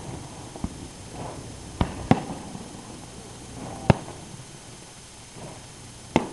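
Aerial fireworks shells bursting: about five sharp bangs at uneven intervals, the loudest about four seconds in.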